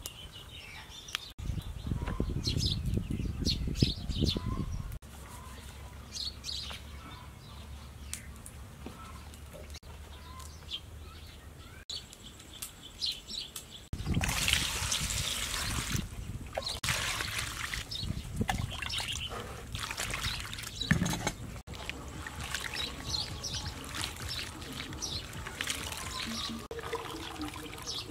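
Birds chirping over the rustle of fresh pumpkin leaves and stems being handled in a steel bowl, in several short cut-together stretches. A low rumble runs from about a second and a half in to about five seconds, and near the end water sloshes as the leaves are washed by hand.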